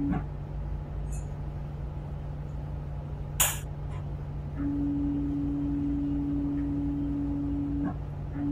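Tugboat engine running with a steady low drone. A single sharp click comes about three and a half seconds in, and a steady hum-like tone joins the drone from about halfway until shortly before the end.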